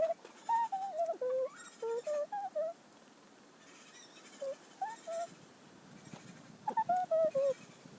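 Hens giving short, bending calls in quick strings, with a pause in the middle of the stretch.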